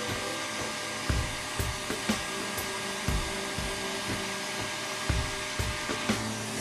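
Heat gun running steadily, blowing hot air to heat and cure vinyl repair compound, with irregular low thumps every half second or so.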